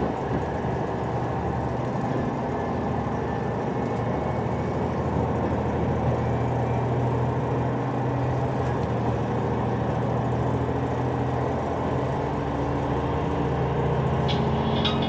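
Steady diesel engine drone and running noise inside the passenger cabin of a KiHa 187 series diesel railcar under way.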